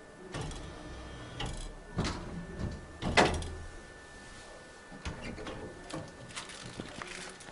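Handling noises at a snack vending machine: scattered knocks and rustles, the loudest a sharp knock about three seconds in. Near the end, the machine's hinged pickup flap is pushed open as a hand reaches into the delivery bin.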